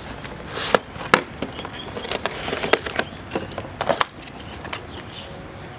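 A cardboard box being opened and unpacked by hand: flaps pulled open and packaging handled, with a few sharp knocks and scrapes of cardboard and a clear plastic tray.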